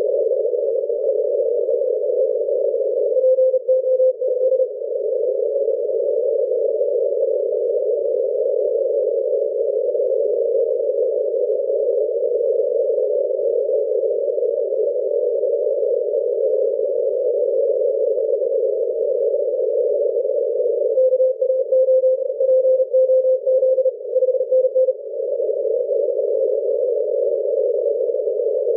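Shortwave receiver audio on the 40-metre CW band through a narrow filter: a steady band of static hiss, with a Morse code tone keyed in two short runs, one a few seconds in and a longer one of about four seconds later on.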